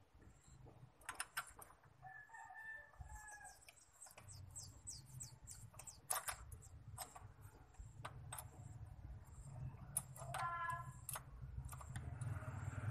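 Chickens clucking and calling in the background, with quick high bird chirps a few seconds in. Over them come sharp metal clicks and taps from a steel gear puller's jaws and bolt being handled and set against the crankshaft gear.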